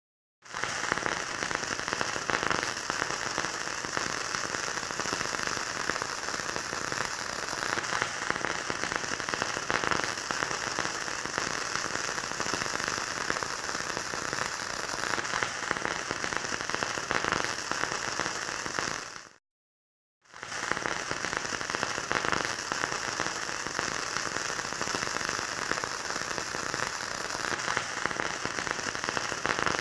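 Flux-core wire-feed welding arc crackling and sizzling steadily. It cuts off abruptly for about a second partway through, then starts again.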